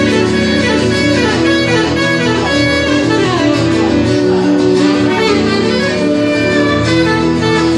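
Live saxophone playing a melody with runs and held notes over acoustic guitar accompaniment.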